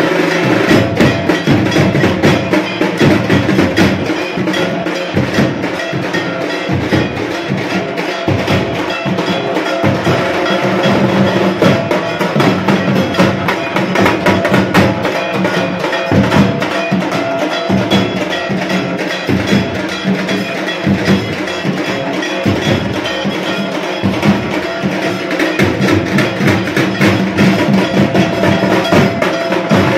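Several dhak drums, the large two-headed barrel drums of Durga Puja, beaten fast and continuously with thin sticks, with a metallic ringing mixed into the rhythm.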